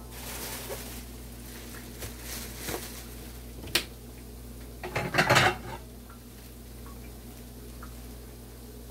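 Kitchen clatter of dishes and utensils being handled: scattered light clicks, a sharp click near four seconds and the loudest burst of clatter about five seconds in, over the steady sizzle of festival dough frying in oil in a cast iron skillet.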